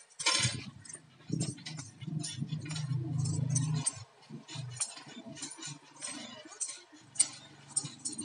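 Payal anklets jingling in quick, irregular clusters of small metallic clinks as the wearer shifts and steps barefoot.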